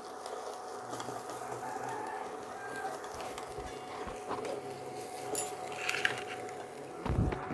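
Wooden spatula stirring and scraping thick spice paste in a metal kadai, with faint chicken calls in the background.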